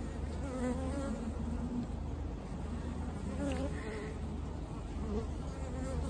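Honey bees buzzing over an open hive: a steady hum, with single bees' buzzing rising and falling in pitch as they fly past.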